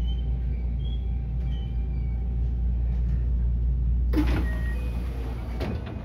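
Steady low hum of a stopped JR West 223 series electric train, heard beside its doors. About four seconds in there is a sudden clatter, and a faint hiss continues after it.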